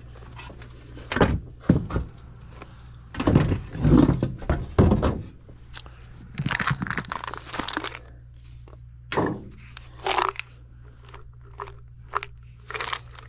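Irregular knocks, thunks and scraping rustles as tools are rummaged in a tool bag and a plastic bottle is picked up and handled. Under them runs a steady low hum from the furnace's blower running.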